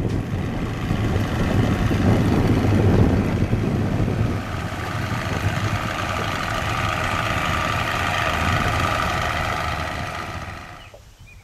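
An engine running steadily, over a low rumble at first. From about four seconds in it has a constant, higher-pitched drone, which cuts off shortly before the end.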